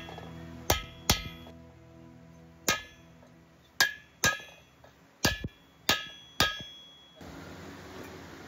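Hammer blows on a steel fixture bar driving chilled exhaust angle-port tubes into a heated Corvair aluminium cylinder head, a press fit made by heating the head and freezing the tubes. About nine sharp, irregularly spaced metal strikes, each ringing briefly, stopping about seven seconds in.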